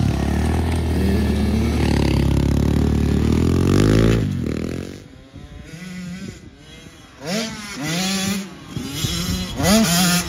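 Dirt bike engine running close by at a steady pitch. About four seconds in, the sound cuts to a more distant dirt bike revving up and easing off several times as it rides the track.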